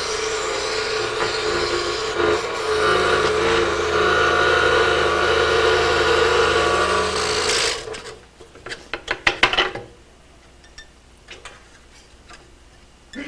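Scroll saw running and cutting through a photo-mounted wooden board: a steady rasping buzz. It stops about seven and a half seconds in, followed by a quick run of light clicks.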